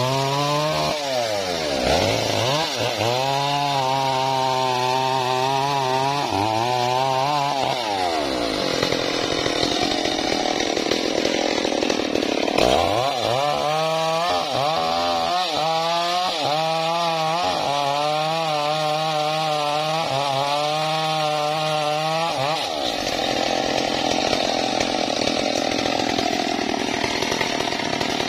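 Stihl MS381 two-stroke chainsaw cutting into a hard tree trunk. Its engine pitch repeatedly rises and dips in two long spells, with steadier, noisier stretches between and near the end.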